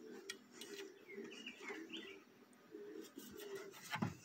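A puppy chewing and gnawing at its own leg on a wooden deck: faint scattered clicks and rustles of teeth and paws, with a sharp thump near the end.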